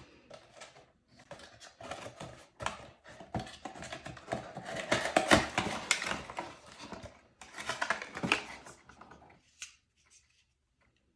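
Hair dryer packaging being handled during unboxing: rustling and crinkling of cardboard and plastic with scattered clicks and knocks, busiest in the middle and stopping about nine and a half seconds in.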